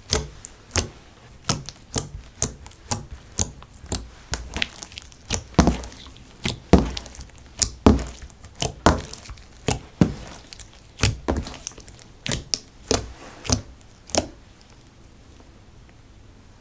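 Slime being pressed and poked, making a run of sharp pops and clicks about once or twice a second that stop about 14 seconds in.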